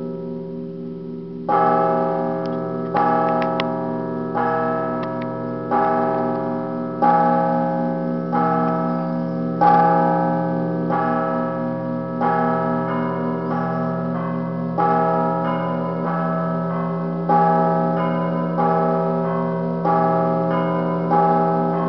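Russian Orthodox church bells ringing in the traditional Russian zvon. A low bell rings on steadily under a set of smaller bells struck together in a regular beat, about one stroke every second and a quarter. The first stroke comes about a second and a half in, after a fading ring.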